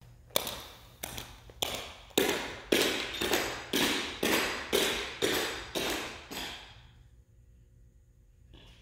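Footsteps of clogging shoes with metal taps on a hardwood floor, about two steps a second, each sharp tap followed by a long echo in a large hall. They grow louder, then fade out about two-thirds of the way through.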